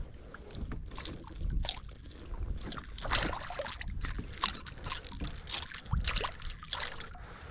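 Scattered small splashes, drips and knocks of water and handling in a fishing kayak, over a low rumble of wind on the microphone.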